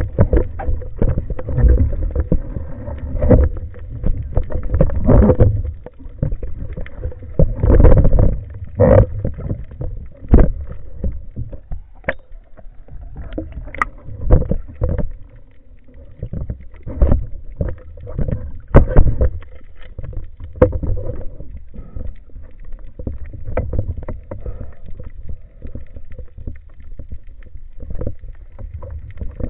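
Muffled underwater sound picked up by a camera on a speargun: a low rumble of moving water that rises and falls, with frequent sharp knocks and clicks as the speargun and its shooting line are handled.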